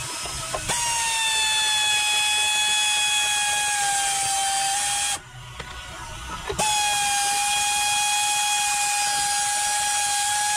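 Power ratchet running freely with a steady whine over a hiss, taking off the battery hardware. It runs for about four seconds, stops for a second or two, then runs again.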